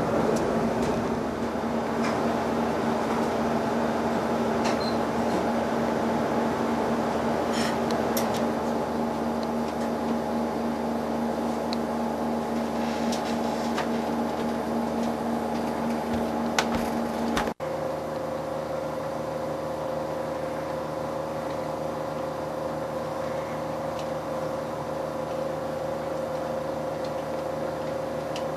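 A steady mechanical hum with a few faint clicks. It breaks off for an instant about two-thirds of the way through and carries on at a different pitch.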